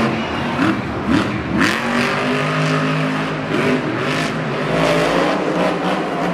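Monster truck's supercharged V8 engine revving hard, its pitch swinging up and down, then held high for a few seconds as the truck charges a ramp and jumps.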